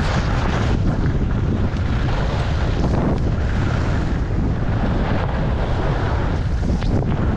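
Loud wind buffeting the microphone of a camera worn by a skier moving down a groomed run, over the steady hiss of skis sliding on snow, which swells briefly a few times as the skis turn.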